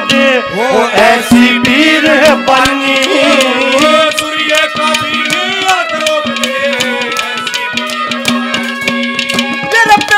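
Live Haryanvi ragni accompaniment: a held drone with a wavering melody line over it and fast, dense hand-drum strokes throughout.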